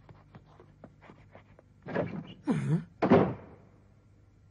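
Light footsteps tapping across a floor, about four or five a second, then about two seconds in a door is opened and shut, ending in a loud bang near three seconds in.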